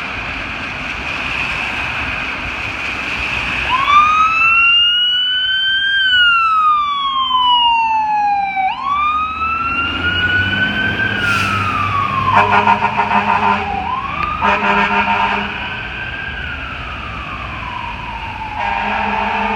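Fire engine siren wailing in long rising and falling sweeps, after a steady high tone at the start. Its air horns sound three times in the second half, each blast about a second long, over the siren.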